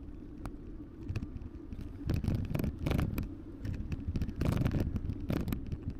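Wind and road rumble on an action camera's microphone during an e-bike ride. About two seconds in, loud irregular rattling and knocking from the bike joins in.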